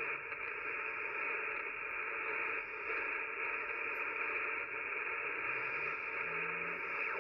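Hiss and static of the 40-metre band from a Yaesu FT-One shortwave transceiver's speaker, heard through the receiver's narrow voice passband while the dial is tuned down the band. A few short, faint low tones step upward in pitch near the end as carriers pass through the tuning.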